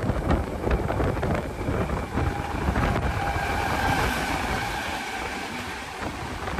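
Rumble and clatter of train wheels on rails, heard from the open door of a moving Indian Railways coach with wind on the microphone, as a WAP7 electric locomotive and its coaches pass on the next track. A faint steady tone comes in after about two seconds and fades again, and the noise slowly dies down toward the end.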